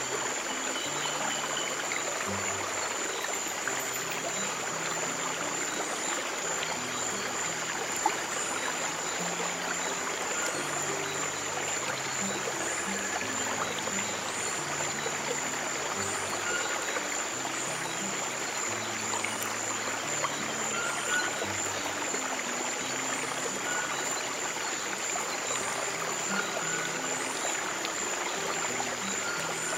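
Flowing stream water, a steady rushing trickle, under slow, soft low piano notes held one after another. A steady high tone and faint short chirps repeating about every second and a half sit on top.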